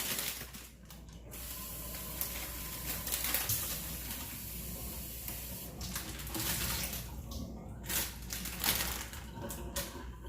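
Kitchen tap running into the sink, water splashing as produce is rinsed, for about four seconds before it stops. Several light knocks and clicks of handling follow.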